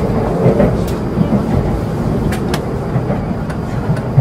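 Cabin noise inside a Hokuriku Shinkansen train running on its final approach to its terminus: a steady low rumble with a few sharp clicks.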